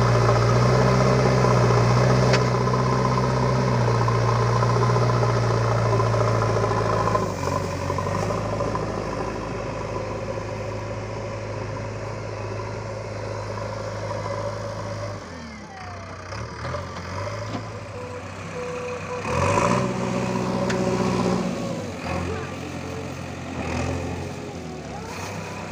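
Diesel engine of a JCB 3DX backhoe loader running loud and steady under load for the first seven seconds or so. It then drops to a lower, unsteady note, with brief rises in engine speed as the machine works soil.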